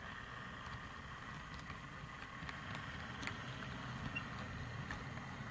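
Model diesel locomotive running slowly along the layout's track with a parcels van, a steady motor hum with scattered light clicks from the wheels on the rails.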